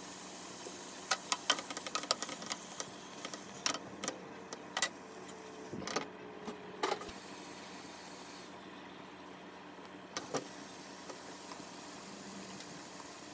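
Cookware handled on a gas stove: a run of light clicks and knocks, then a glass lid clinking and ringing briefly as it is set onto the frying pan, and a few more knocks later, over a steady low hum.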